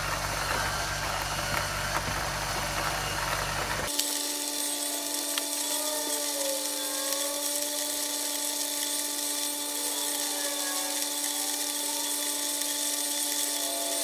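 Portable USB-rechargeable electric coffee grinder running, its motor grinding beans with a steady whirr. About four seconds in the sound changes abruptly to a thinner whine with wavering tones, as the footage is sped up six times.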